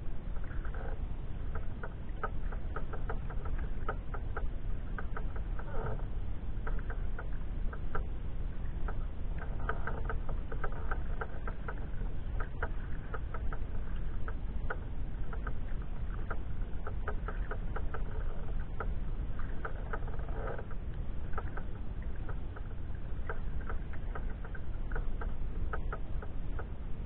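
Water lapping and splashing irregularly against a sea kayak, over a steady low rumble.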